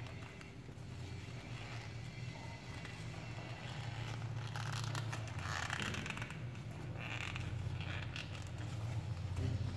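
A folded paper dollar bill rustling and crinkling as fingers pinch and crease it, in a few short rustles about halfway through and again a second or two later, over a steady low hum.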